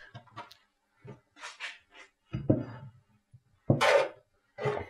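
A few short, scattered knocks and rubs of a 316 stainless steel bar being handled on a floured worktop, used in place of a rolling pin for pastry dough.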